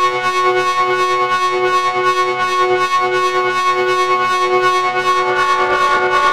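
Electronic sequencer music: a held chord of tones rich in overtones, pulsing about three times a second. About five and a half seconds in, the lower notes drop away and the sound turns grittier.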